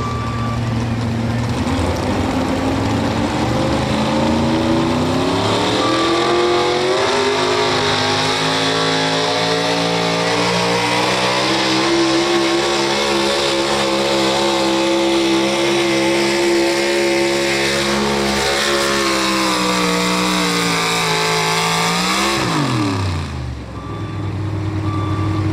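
Pro stock 4x4 pulling truck's engine climbing in revs as the pull gets under way, then holding high, steady revs under load through most of the run. A few seconds before the end the revs drop away sharply as the throttle comes off, settling to a low run.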